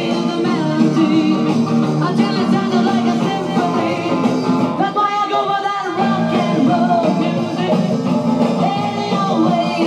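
A song with singing playing through the speakers of a Panasonic SE-1318 solid-state console stereo.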